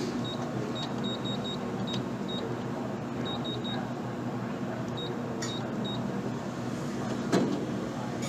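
Steady machine hum with a series of short, high electronic beeps, some in quick runs of three or four, like keypad button presses on a vending machine. There is one sharp knock about seven seconds in.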